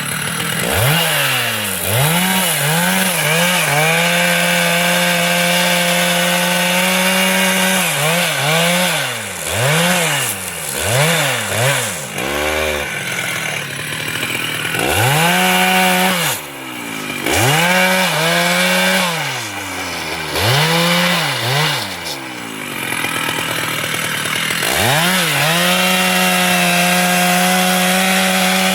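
Two-stroke chainsaw engine revving up and down in quick repeated throttle blips. Twice it is held at a steady high speed for several seconds: once a few seconds in, and again near the end.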